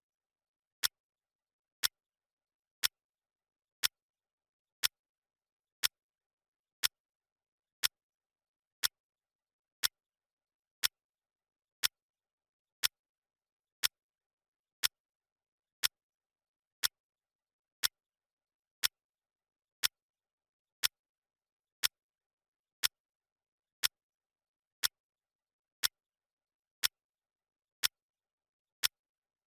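Countdown timer's clock-tick sound effect: a single sharp tick once a second, evenly spaced and identical, with silence between ticks.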